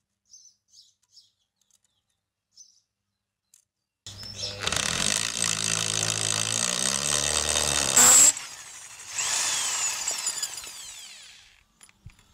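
Electric drill with a masonry bit boring through a cast concrete decorative stone tile. It starts about four seconds in, after a few faint ticks. The motor's pitch shifts during the cut, with a brief louder peak, then it runs again more briefly and winds down near the end.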